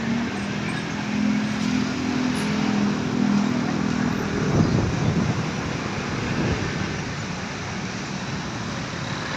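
Road traffic: a low engine hum runs for the first four seconds, then a vehicle goes past close by about four and a half seconds in, and steady road noise follows.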